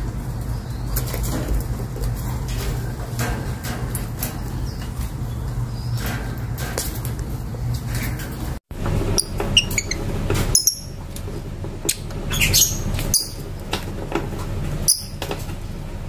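Caged lovebirds making short high chirps and squeaks at irregular intervals over a steady low background hum, with light rustling. The sound drops out abruptly about halfway, and the chirps come after that.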